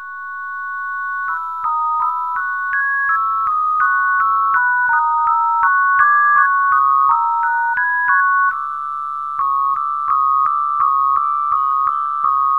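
Soundtrack music on an electronic keyboard: a plain two-note tune of high, pure tones stepping between a few pitches about twice a second, with a small click at each note change. It fades in at the start, and a long held chord opens it.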